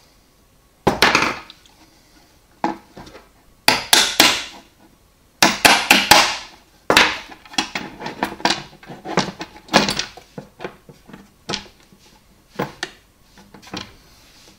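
A plywood board with bolts through it knocked and clinked into place on the metal frame of a car seat base, with a dozen or so irregular sharp knocks and metallic clinks, the loudest about a second in and around the middle, as the bolts are fitted into the frame's holes.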